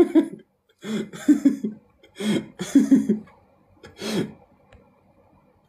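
A man laughing in about four bursts of quick, breathy 'ha-ha' pulses, dying away about four and a half seconds in.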